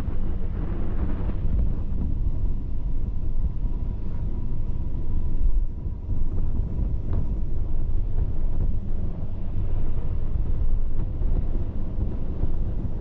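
Wind buffeting the microphone over the steady low rumble of a moving vehicle and its road noise.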